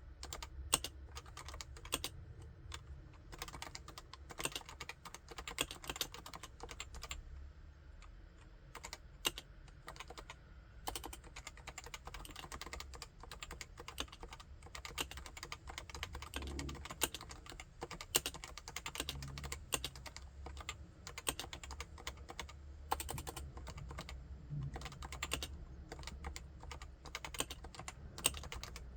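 Continuous typing on a Topre Realforce 87UW tenkeyless keyboard with electrostatic capacitive (Topre) switches: a dense, uneven stream of keystrokes, with an occasional louder stroke standing out.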